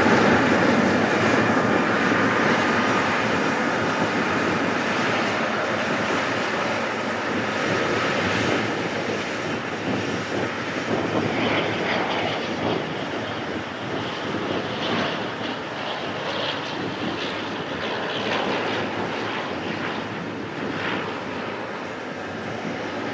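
Boeing 777's twin GE90 turbofan engines running at low thrust as the jet taxis slowly past close by: a steady jet rush with a faint whistling tone that fades after about eight seconds, the whole sound slowly getting quieter.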